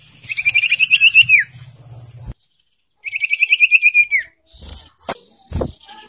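A young sirtu songbird calling: two rapid trilled phrases, each about a second long and ending in a falling note, a little over a second apart. A sharp click and a short low thump follow near the end.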